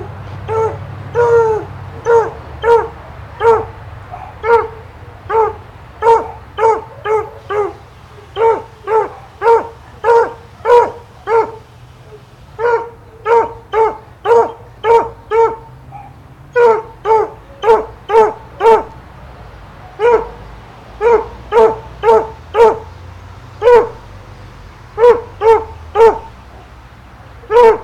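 A dog barking over and over, about two barks a second, every bark on the same fairly high pitch, in runs broken by short pauses.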